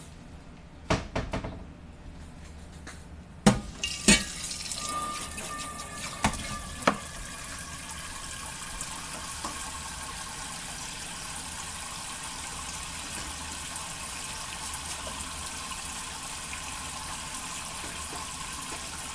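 A few knocks and clatters, then a kitchen tap running steadily into the sink from about four seconds in.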